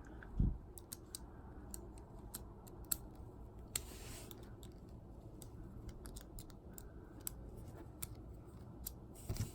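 Small plastic parts of a Bakugan toy being handled, giving faint scattered clicks and taps, with a brief soft rub about four seconds in.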